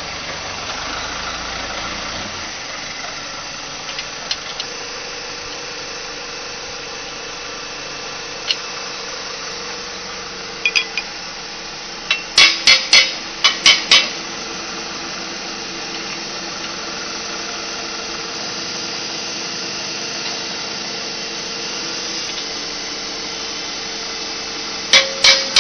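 Sharp metal-on-metal clanks and hammer-like strikes on the parts of a flat-die pellet mill during assembly: a few single clicks, a quick run of about seven strikes about halfway through, and another rapid series starting near the end, over a steady background hum.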